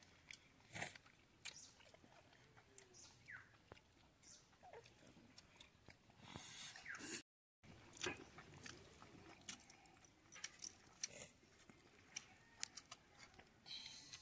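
Faint chewing and small clicks and taps of people eating a meal, with a brief dead-silent gap about seven seconds in.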